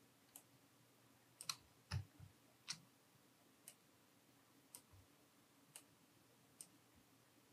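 Quiet, irregular clicks of a computer mouse, about eight spread over the stretch, over faint room hiss.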